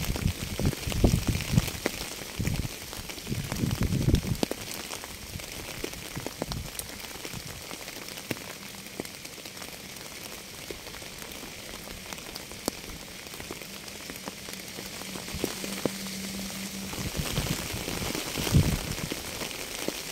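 Steady rain falling, an even hiss. Heavy low thuds of drops sound close by in the first few seconds and again briefly near the end.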